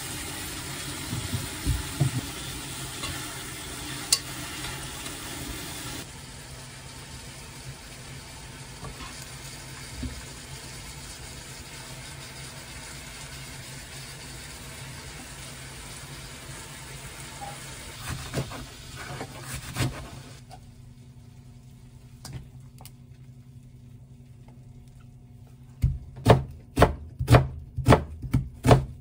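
Food sizzling in a pot, with stirring knocks, for the first several seconds. Near the end comes a chef's knife chopping an onion on a plastic cutting board, two to three firm strokes a second.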